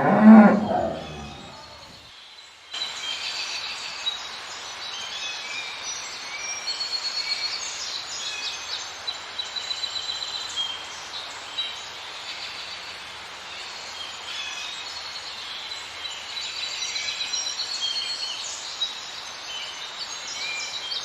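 A cow moos once, the loudest sound here. After about three seconds, many small birds chirp and sing over a steady outdoor hiss.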